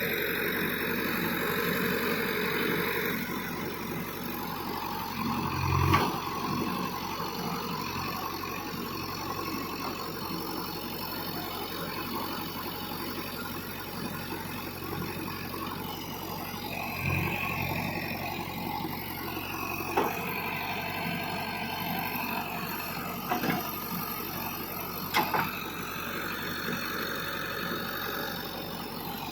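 JCB earth mover's diesel engine running steadily while working, with occasional sharp clunks and knocks.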